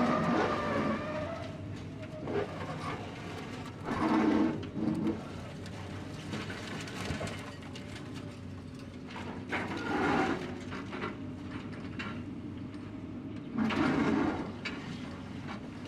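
Wheeled excavator's diesel engine running steadily, with four louder surges spread through as it works.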